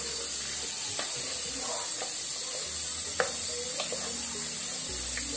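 Beef chunks and diced bacon sizzling steadily as they fry in a pressure cooker, stirred with a spoon that knocks against the pot a few times, most sharply about three seconds in.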